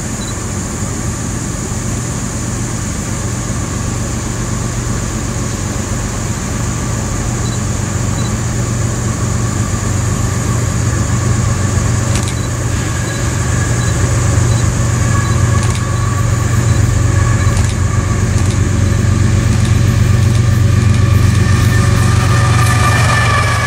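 Norfolk Southern freight train approaching: the diesel locomotives' low engine drone grows steadily louder. Over the last half, a few steady higher ringing tones join in and strengthen as the lead locomotive comes close.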